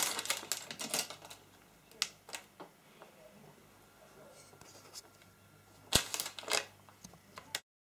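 Clear plastic bags of Lego pieces being handled and opened: crinkling plastic with small plastic bricks clicking and rattling, in bursts at the start and again about six seconds in, with a few single clicks between. The sound cuts off suddenly just before the end.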